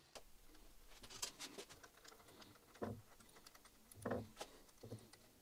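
Near silence broken by a few faint light clicks and taps, as small machine parts are handled and fitted by hand.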